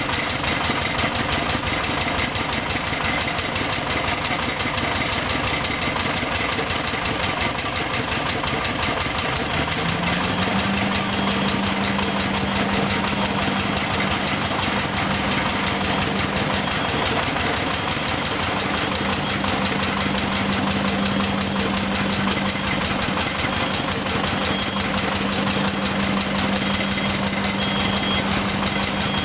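Diesel engines idling and running steadily, from a Sany SR150C hydraulic rotary piling rig and a small stationary engine unit. About ten seconds in, a steady hum rises slightly in pitch and then holds.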